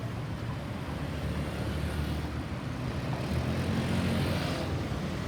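Road traffic: a motor vehicle's engine and tyres passing, swelling to its loudest about four seconds in.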